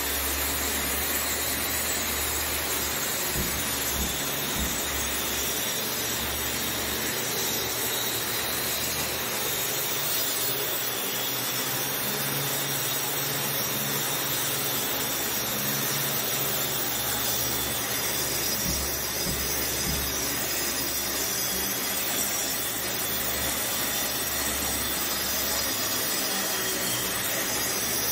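Metabo angle grinder with a shrouded cup wheel grinding a scaled concrete floor, a steady grinding noise, taking off the loose, freeze-thaw damaged surface before repair.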